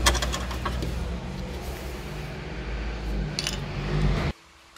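Clinks of bottles and jars in a refrigerator door shelf as it is opened and something is taken out, over a steady low rumble of camera handling. A second cluster of clinks comes about three and a half seconds in, and everything cuts off suddenly shortly after.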